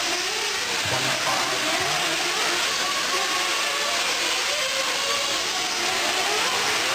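Several 1/8-scale nitro RC truggy engines running at once, their high buzzing pitch rising and falling over and over as the trucks accelerate and back off around the track.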